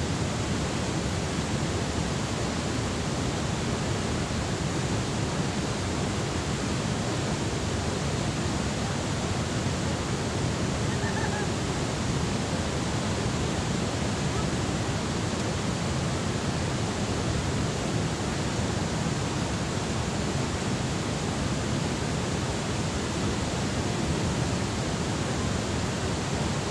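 Water rushing steadily out of a dam's spillway gates: an even, unbroken rush of noise.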